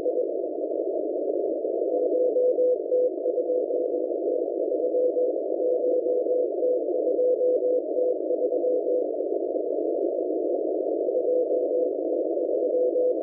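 Morse code from the M01 numbers station heard on a shortwave receiver: a single-pitched tone keyed in dots and dashes over a narrow band of static hiss. The keying starts a couple of seconds in, pauses about nine seconds in, and resumes near the end.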